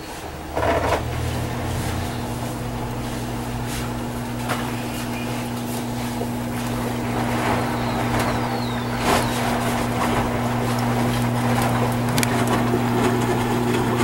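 Electrolux LFE10 front-loading washing machine in its final rinse: a steady motor hum starts about half a second in, with water and wet laundry sloshing and thudding in the turning drum.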